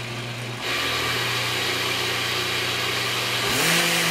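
Countertop blender running on a mixture of soaked rice, water and cinnamon, a steady motor hum. It gets louder about half a second in, and its pitch rises as the motor speeds up about three and a half seconds in.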